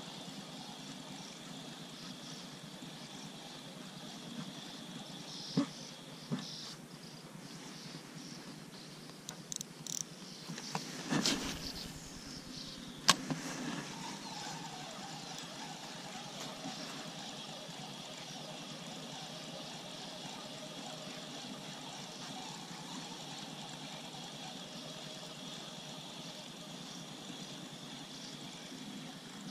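Riverbank ambience: a steady high insect chirring over a faint low drone, broken around the middle by a few clicks and knocks of fishing-rod handling, the sharpest a little before halfway through.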